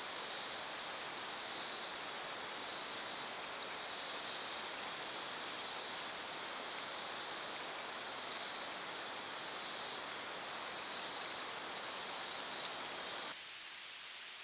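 Outdoor creek-side ambience picked up by a trail camera's microphone: a steady hiss, with a high insect chorus swelling about once a second. Near the end it switches abruptly to a harsher, brighter static hiss.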